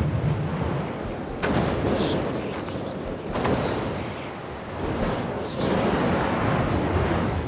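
Steady wind and ocean surf noise, a loud rushing sound with a deep low rumble, that changes abruptly about one and a half and three seconds in.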